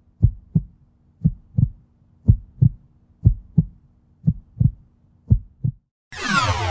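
Heartbeat sound effect: six double thumps in a lub-dub pattern, about one a second, over a faint low drone. A whoosh with falling sweeps starts near the end.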